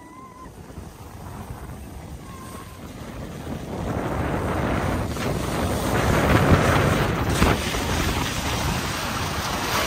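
Wind rushing over the phone's microphone and the rush of a snow tube sliding down a packed snow tubing lane, growing louder from about four seconds in as the run gathers speed.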